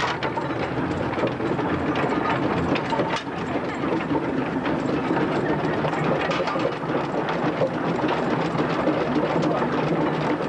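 Steam traction engine running as it travels along a road, heard from its footplate: a steady mechanical clatter from its working motion.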